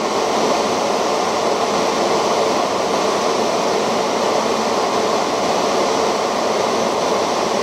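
Steady rushing air noise from a 600 W FM broadcast transmitter's cooling fans, heard up close, with a faint steady hum underneath.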